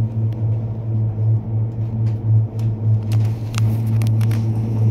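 Ride inside a Téléo tricable gondola cabin: a steady low hum. From about halfway in, a series of sharp clicks and knocks comes as the cabin runs past a support tower's sheaves.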